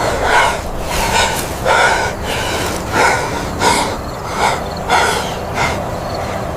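A person breathing hard in quick rhythmic gasps, about ten heavy breaths, over a steady rushing background.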